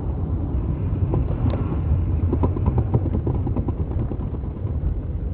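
Steady low rumble of a car's engine and tyres, heard inside the moving car's cabin, with a few faint ticks and knocks.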